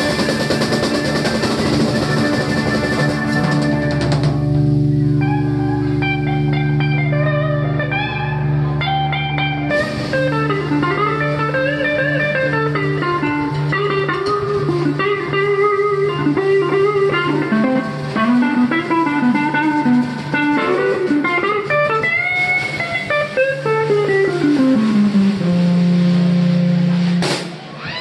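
A live band plays, led by a Stratocaster-style electric guitar playing a lead line of bent and sliding notes over drums and a steady low bass. Near the end the guitar slides down in one long glide.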